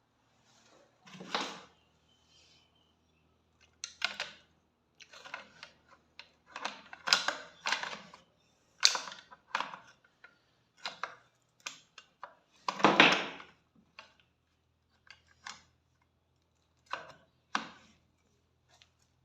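Irregular series of sharp clicks, knocks and short scrapes from the restored rifle's metal parts being handled, with the loudest, longer one about two-thirds of the way through.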